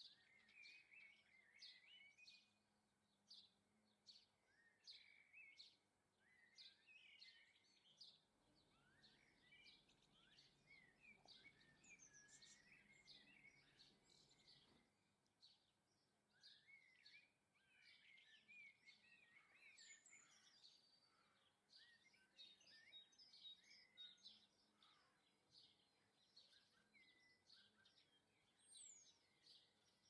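Faint garden birdsong: many small birds chirping and singing in overlapping short, high calls and trills, with a steady low background hiss.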